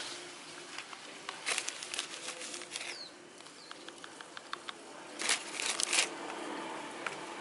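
Potting soil scooped with a small metal trowel and sprinkled and spread over a plastic basin to cover sown seeds thinly: gritty rustling and scraping in two bursts, about a second and a half in and again about five seconds in, with light ticks of falling grains between.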